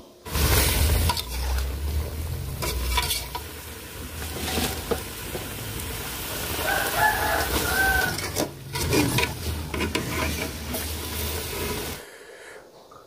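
Leafy greens being stir-fried in a metal pan: sizzling and stirring over a steady low rumble, stopping abruptly near the end. A rooster crows once in the background about seven seconds in.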